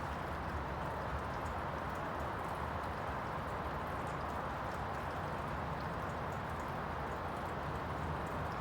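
Steady rain falling, heard as an even hiss with faint scattered drips.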